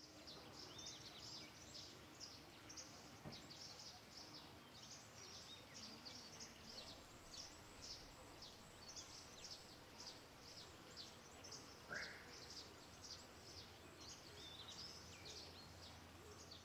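Faint outdoor ambience with small birds chirping continuously in short, high-pitched calls, and one lower rising call about twelve seconds in.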